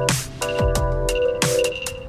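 Electronic background music with a steady beat: kick and snare drums under held synth chords.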